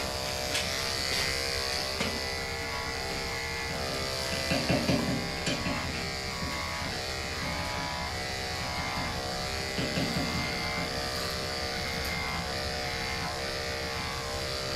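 Andis AGC two-speed electric dog clipper running steadily with a motor buzz as it shaves a dog's thick coat. It grows briefly louder about five seconds in and again near ten seconds.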